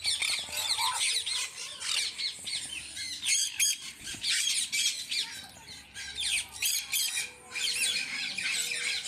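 Several parrots squawking and screeching at once, a dense run of sharp, quickly rising and falling calls that overlap with no break.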